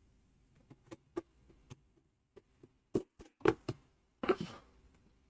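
Scattered small clicks and knocks of hard plastic on plastic as a little moisture meter is pushed into a snug 3D-printed holder, with louder knocks about three seconds in and a brief rustle a little after.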